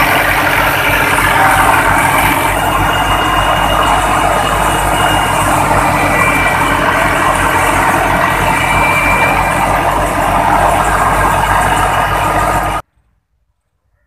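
New Holland Fiat 480 tractor's diesel engine running steadily, driving a wheat thresher through its PTO shaft, with the thresher's drum, pulleys and belts whirring. The sound cuts off suddenly near the end.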